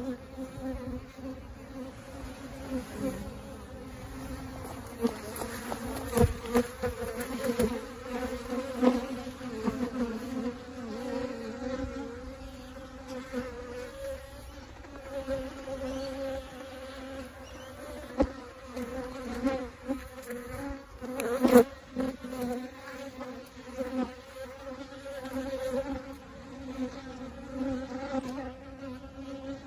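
A swarm of bees buzzing, a steady drone that swells and fades as bees fly close past. A single sharp knock sounds about three-quarters of the way through.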